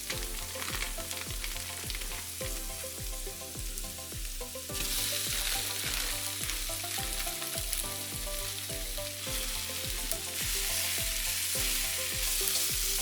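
Udon noodles and vegetables sizzling in hot oil in a pan as they are stir-fried. The sizzle grows louder about five seconds in and again near the end. Background music with a steady bass beat plays underneath.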